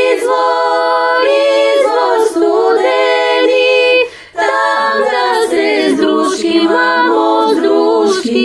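Women's folk choir singing a cappella in close harmony, holding and stepping between long notes, with a brief break about halfway through. The voices are layered from separately recorded home takes.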